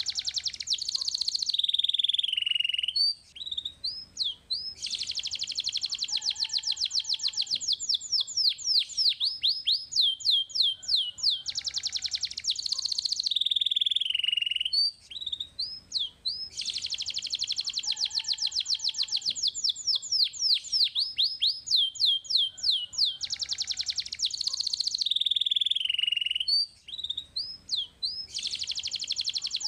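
Domestic canary singing: long, rapid trills of fast repeated high notes, broken by short pauses with a few slower whistled notes. The same song sequence comes round again about every 12 seconds, as a looped recording does.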